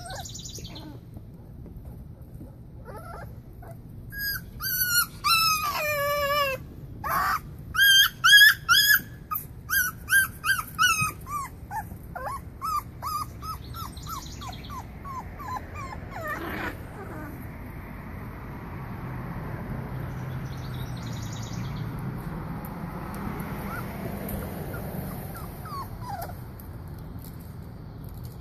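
Boxer puppies whining and yelping in high-pitched cries. A quick string of short yelps starts about four seconds in, then they fade to a few faint whimpers.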